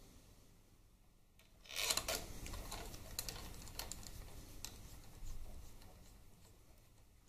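A hand hex driver turning a bolt into a Harley-Davidson Twin Cam 88's chrome transmission side cover: a quick run of small metal clicks and scrapes that starts about a second and a half in and tails off near the end.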